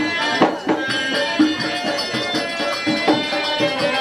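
Traditional Indo-Fijian folk music accompanying a nachaniya dance: steady drum beats, jingling percussion and a sustained held melody.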